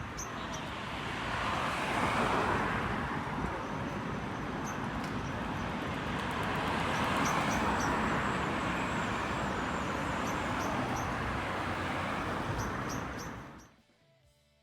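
Road traffic: vehicles passing, their noise swelling about two seconds in and again around seven seconds, with faint high chirps over it; it cuts off suddenly near the end.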